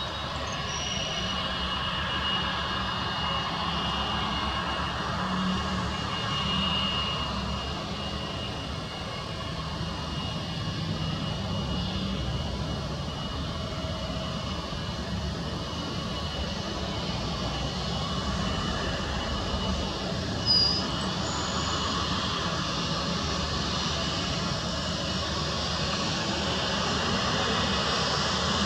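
Airbus A320-232's IAE V2500 turbofan engines running at low thrust as the jet taxis along the runway: a steady rumble with a thin high whine, growing a little louder near the end. A brief high-pitched chirp cuts in once about twenty seconds in.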